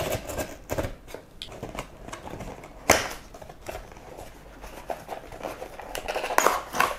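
Small cardboard processor box being opened by hand: its seal sticker picked at, the flaps lifted and the box handled, giving scattered taps, clicks and rustles, with one sharper snap about three seconds in.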